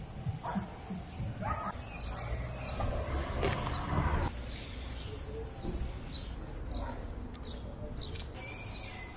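Aerosol spray paint can hissing as black outline lines are sprayed onto a wall. The hiss breaks off for a couple of seconds past the middle and starts again near the end. Small birds chirp in the background.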